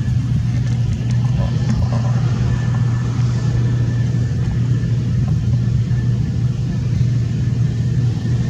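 Case IH 2388 combine running steadily under harvest load, a constant low engine drone with a faint steady whine above it.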